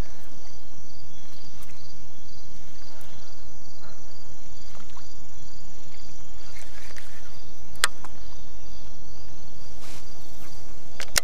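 Insects chirping: a steady high trill with a pulsing chirp about twice a second. Two sharp clicks cut through it, one about eight seconds in and one near the end.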